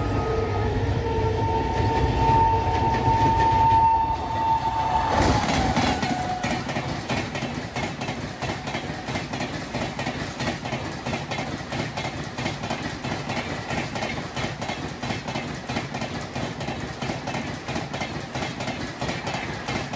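Howrah Rajdhani Express passing at about 135 km/h. The electric locomotive's horn holds a long steady note for the first few seconds, then drops in pitch as the engine rushes by. After that comes a fast, even clickety-clack of the coach wheels over the rail joints.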